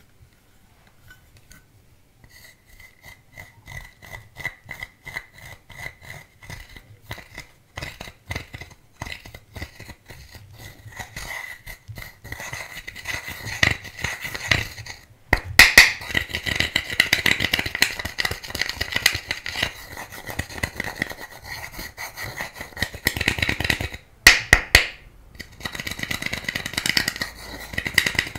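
Metal-tipped dotting tool scraping and crumbling pressed highlighter powder in its compact: a fast run of small scratches that starts faint and grows louder, with brief breaks about halfway and near the end.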